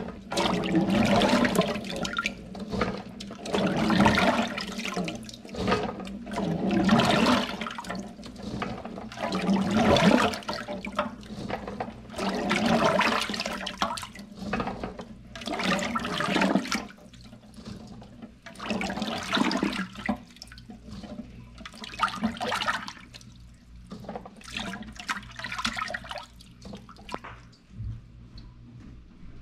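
Hands sloshing and scooping crabapples through water in a stainless steel sink: irregular splashing that thins out and grows fainter in the second half.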